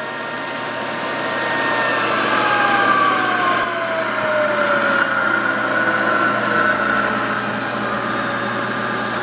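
Variable-speed milling machine head running, its 3 HP motor and spindle drive humming with a whine that falls steadily in pitch as the spindle speed comes down.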